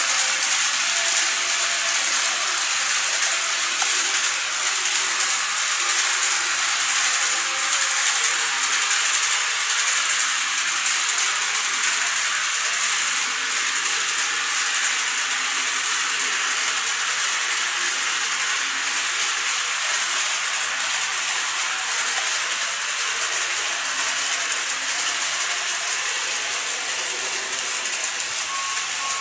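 Model Seibu 30000 series train running along its track, its wheels and motor making a steady, high-pitched rolling hiss.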